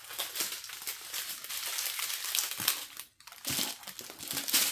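Small plastic bags of diamond painting drills crinkling and rustling as they are handled, with a short lull a little over halfway through.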